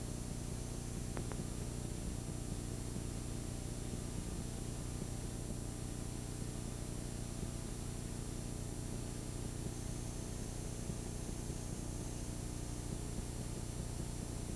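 Steady hiss and low electrical hum from an old videotape recording with no programme sound.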